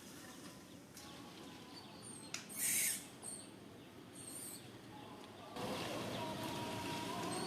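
A short, loud, high-pitched animal squeal about two and a half seconds in, over a steady outdoor background. The background grows louder near the end, with a faint steady tone.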